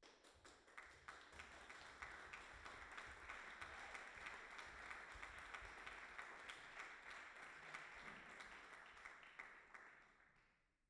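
Audience applauding: a dense patter of many hands that starts suddenly, holds steady, then dies away near the end.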